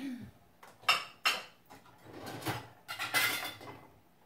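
Metal spoon clinking and scraping against a stainless steel saucepan while scooping cooked rice out onto a plate. Two sharp clinks come about a second in, followed by a couple of seconds of scraping and clatter.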